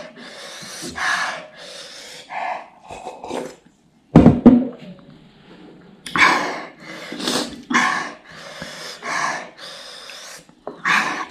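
A person breathing hard in rough, repeated gasps and exhalations, the panting of someone whose mouth is burning from ghost pepper noodles. There is one louder burst about four seconds in.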